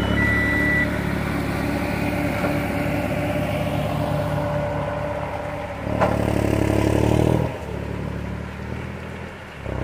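Diesel farm tractor engines running steadily, with a reversing alarm beeping for the first second. About six seconds in the engine sound grows louder for a second and a half, then drops back.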